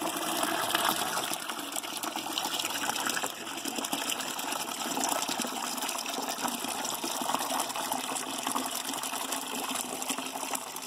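Grape juice from a wine kit gushing in a steady stream out of a plastic spout into a plastic fermenting bucket, splashing and foaming as it lands on the liquid already inside.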